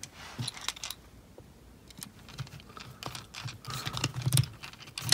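Irregular light clicks and taps of small screws and 3D-printed plastic parts being handled while a screw is fitted through the printed mount into a stepper motor, with some rubbing and handling noise.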